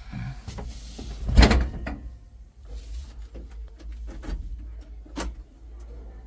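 A steady low machine rumble with knocks and clanks: a loud one about one and a half seconds in, lighter ones later.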